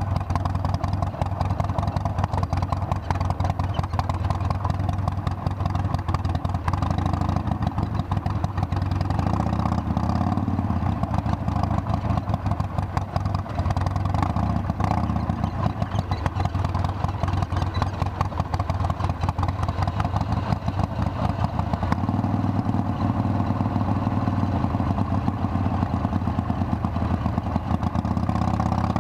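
Harley-Davidson Sportster's air-cooled V-twin running steadily at low speed while ridden slowly on a gravel road. Its note shifts a little about ten seconds in and again about twenty-two seconds in.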